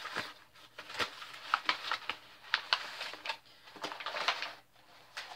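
Crumpled white packing paper rustling and crackling as it is unwrapped from a bottle, in irregular sharp crinkles.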